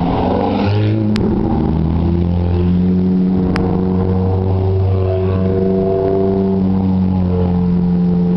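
A line of Ferrari sports cars, a 360 Modena among them, driving past one after another. Their engines run loud, the notes stepping up and down in pitch as each car goes by.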